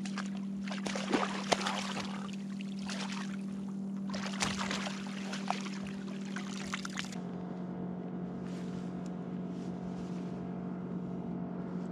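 Water splashing and sloshing in irregular bursts as a hooked trout thrashes and is scooped into a landing net beside the kayak. The splashing dies away about seven seconds in, once the fish is netted. A steady low hum runs underneath.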